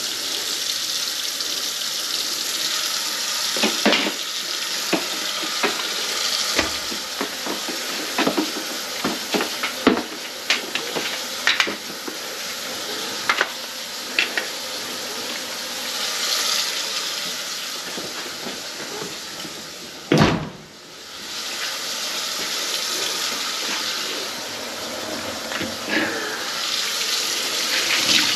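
Water running from a kitchen faucet into a sink, with many sharp clicks and knocks of hard things in the sink. About twenty seconds in there is a heavy knock and the water sound briefly drops away before running on.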